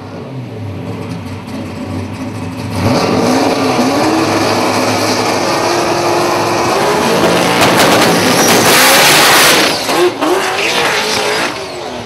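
Drag-racing pickup's engine running at the start line, then revved hard about three seconds in and held high, building to a full-throttle launch that is loudest well past the middle. About ten seconds in the sound drops and wavers as the truck pulls away down the strip.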